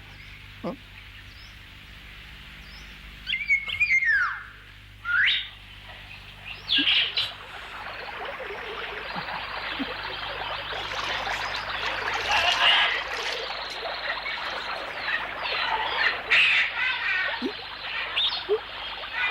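High animal calls: a few separate chirps and squeals gliding down in pitch, then, from about seven seconds in, a dense chorus of chattering calls that carries on without a break.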